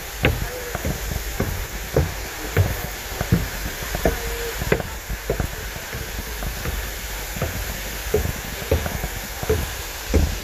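A hiker's footsteps on a trail: a short, uneven thud about every half second to a second, over a steady low rumble.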